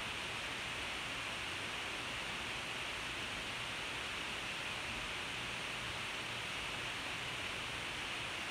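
Steady hiss from a poor recording's noise floor, with nothing else standing out.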